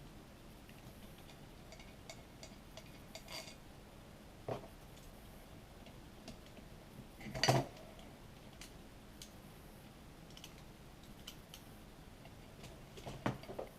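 Faint ticks and clicks of a hand screwdriver working screws out of a small two-stroke bicycle engine's case, with metal clinks of parts and screws being handled; the loudest clank comes about halfway, with another near the end.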